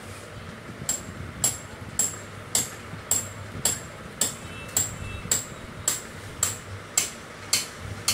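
Sharp metallic taps repeating evenly, a little under two a second, starting about a second in.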